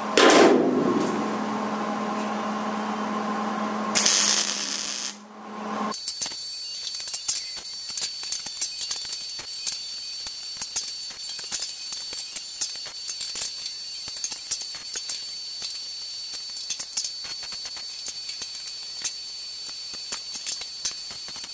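MIG welder laying welds on sheet steel: from about six seconds in, a steady crackling sizzle of rapid sharp snaps with a thin high whine underneath. A short hiss comes a second or two before it starts.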